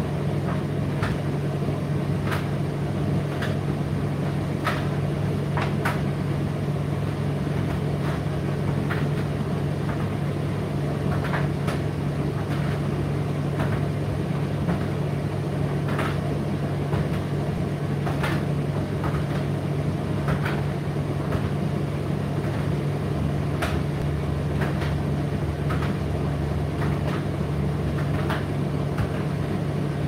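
Indesit IDC8T3 condenser tumble dryer running mid-cycle: a steady low motor and fan hum. Irregular light clicks and knocks come through it, typical of the load tumbling in the turning drum.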